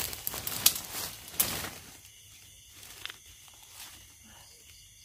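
Rustling and crackling in dry forest leaf litter, several sharp crackles in the first two seconds, then fainter rustling.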